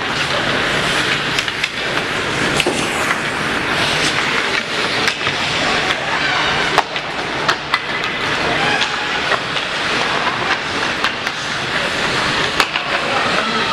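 Ice hockey game in a rink: a steady din of skates scraping the ice, broken by frequent sharp clacks of sticks, puck and boards.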